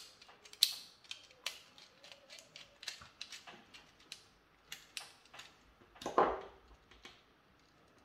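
Small clicks and ticks of a screwdriver and a plastic wall switch being handled while a wire is fastened into the switch's terminal, with a longer, louder scrape about six seconds in.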